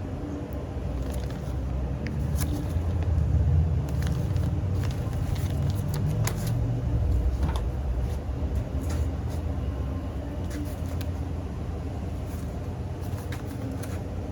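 Cardboard cases of consumer fireworks being handled and unpacked: scattered knocks, clicks and rustles over a low rumble that swells a couple of seconds in and eases off after about eight seconds.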